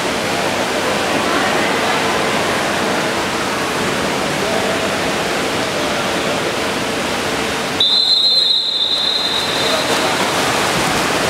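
Steady hiss of background noise at a water polo pool. About eight seconds in, a referee's whistle sounds one long, steady blast lasting about two seconds, signalling the start of the sprint for the ball.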